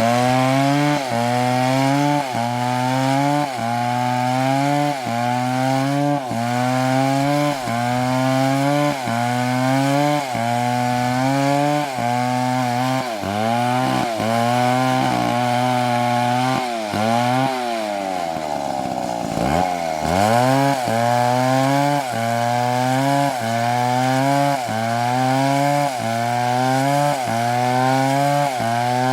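Chainsaw running at high revs while cutting wood, its engine pitch dipping and recovering about once a second as the chain loads in the cut. About two-thirds of the way through the engine speed sags for a couple of seconds, then climbs again.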